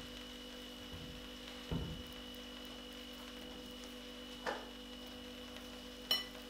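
Steady electrical hum, with a few soft knocks and a sharp clink near the end.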